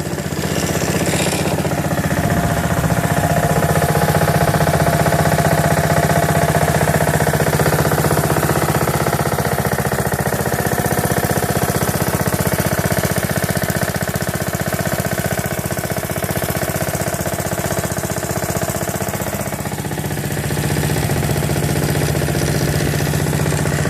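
Honda HRX 217 walk-behind lawn mower's engine running steadily, a little louder from about two seconds in, with a brief dip in level near the end.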